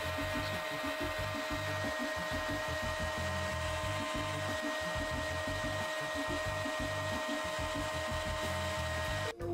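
Spindle moulder running with a steady whine over a pulsing low rumble; the sound cuts off abruptly near the end.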